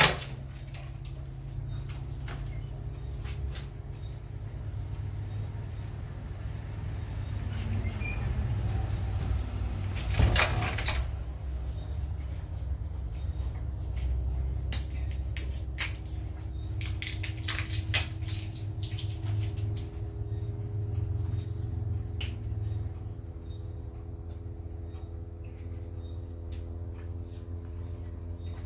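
Glass-lidded pan of curry heating toward the boil: a steady low rumble with scattered light clicks and taps, a louder rush about ten seconds in and a run of clicks a few seconds later.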